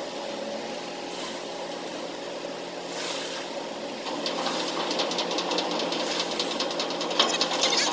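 Moored gravel-carrying grab-crane ship (gut ship) running its machinery with a steady hum, mixed with the splash of water pouring from an outlet in the hull into the harbour. A fine rapid rattling joins in from about halfway through.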